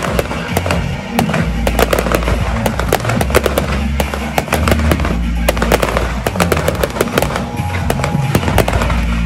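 Fireworks display: aerial shells and ground fountains going off in a dense, rapid run of bangs and crackles, with music and a steady bass line playing along.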